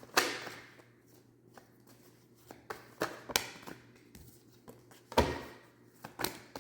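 Tarot cards being shuffled and handled in a handful of short rustling bursts, the loudest right at the start and another about five seconds in.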